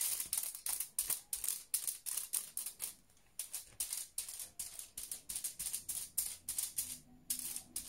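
Paintbrush scrubbing glue along the edge of thin aluminium kitchen foil laid on card: quick scratchy swishes, about three or four a second, with short pauses about three seconds in and near the end.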